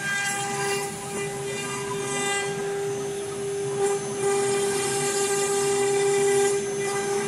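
AccTek AKG6012 desktop CNC router running a job: the spindle motor holds a steady high whine while the gantry drives the cutter through the workpiece, with a rougher cutting and drive noise under it. The whine grows a little louder about halfway through.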